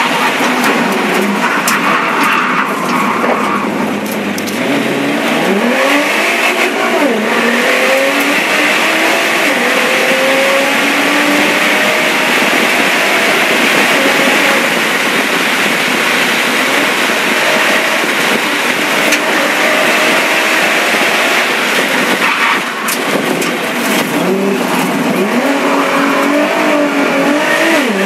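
Nissan GT-R race car's twin-turbo V6 heard on board at speed, its pitch climbing and then dropping sharply several times as the driver accelerates, shifts and lifts for corners, over heavy wind and road noise.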